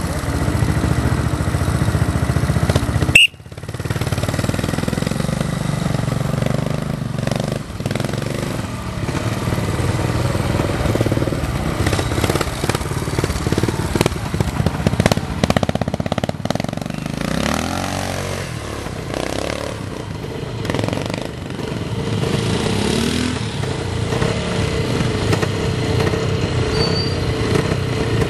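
Vintage trials motorcycle engine running at low revs, the revs rising and falling with the throttle as the bike picks its way up a steep section. The sound cuts out briefly about three seconds in.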